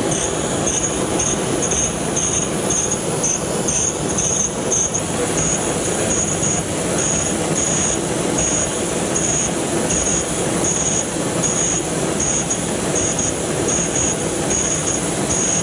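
Brass blowtorch burning hydrocarbon (Class A3) refrigerant gas fed from its cylinder: a steady hiss of the burning gas jet. It has lit at once, showing how readily the refrigerant ignites. A faint high-pitched chirp repeats about twice a second.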